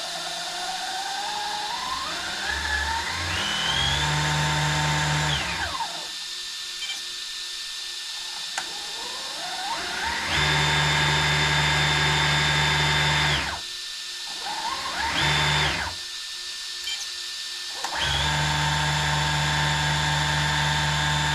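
Electric drive motors and gear drivetrain of an RC truck whining under throttle, in four runs. The first spins up with a rising whine over a few seconds, then holds steady. Two more steady runs follow with a short burst between them, and the motors drop back to a low hum in the gaps.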